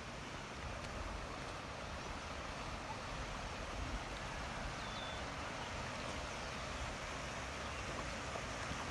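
Floodwater rushing steadily down a swollen wadi after heavy rain.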